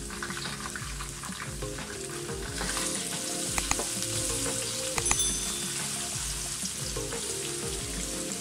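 Chopped onions sizzling in hot oil with cumin and curry leaves in a wok, stirred with a spatula, a steady frying hiss. A few sharp clicks come near the middle.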